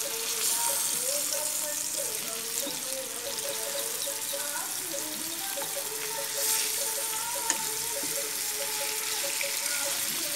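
Marinated chicken legs sizzling steadily in a little hot oil in a frying pan while they are turned with a spatula. There is a brief surge of sizzling about six and a half seconds in as a leg is flipped, and a single sharp click about a second later.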